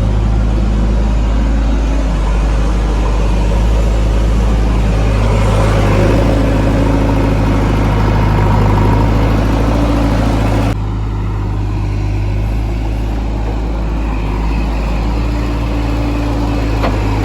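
Heavy diesel machinery engine running steadily with a deep, constant drone. About eleven seconds in the sound abruptly turns duller, then carries on.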